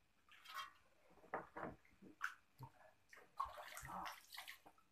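Faint, irregular splashing and sloshing of water in a shallow plastic paddling pool holding live fish, as a hand dips in and scoops water that drips back.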